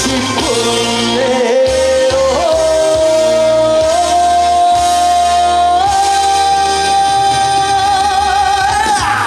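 Live trot song with band backing: a male singer holds one long high note that steps up in pitch three times, ending in vibrato and cutting off about nine seconds in, as the song closes.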